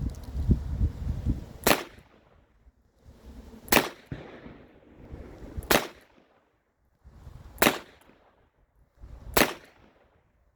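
Five shots from an NEF model R73 revolver in .32 H&R Magnum, fired one at a time in heavy double action about two seconds apart, each with a short echo. Low wind rumble on the microphone in the first second or so.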